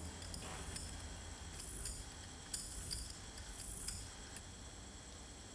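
Ink roller worked over a carved woodblock: a handful of short, raspy strokes with a few light clicks, over a low steady hum.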